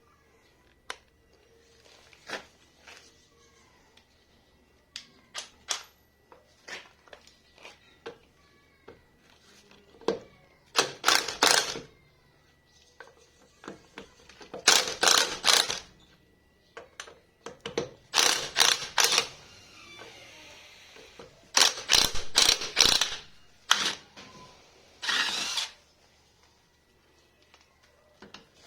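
Hand tools working on metal: scattered clicks and clinks, with several short runs of rapid ratchet-like clicking about a second long each.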